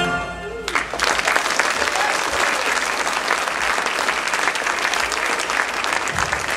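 The tail of a sung song fades out, and about a second in an audience breaks into applause, clapping steadily.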